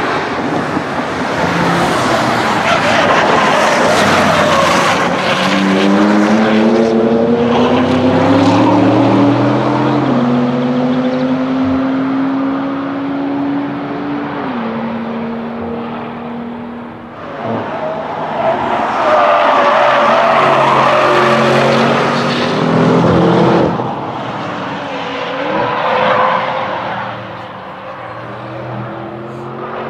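Audi RS6's twin-turbo V8 running hard on a race track: the engine note climbs in pitch under acceleration, then drops at a gear change about halfway. A second loud run starts abruptly and is loudest just past two-thirds of the way through.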